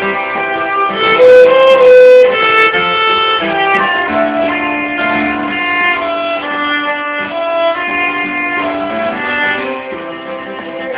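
Fiddle playing an instrumental break with guitar accompaniment in a country-folk song.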